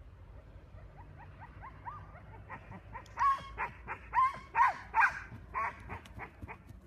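A small dog barking in a quick series of high, sharp barks, about two a second, with softer rising whines before them.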